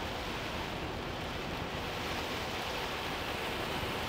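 Steady rush of torrential rain and tyre spray as a large truck drives along a flooded road in a downpour.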